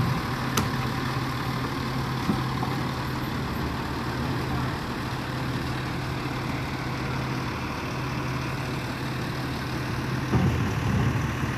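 Rear-loader garbage truck's diesel engine idling with a steady low hum, with a louder low rumble about ten seconds in.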